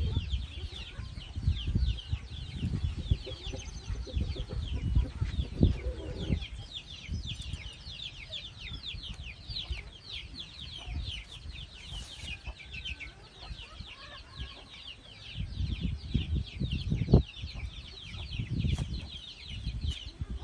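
Chickens clucking over a steady stream of quick, high, falling chirps, with rustling and low bumps from a rooster being handled and held by its wings.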